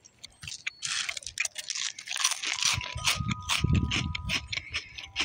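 Crisp crunching and a rapid run of small dry clicks from handled crunchy mini pancake cereal pieces, with the heaviest crunches a little past the middle.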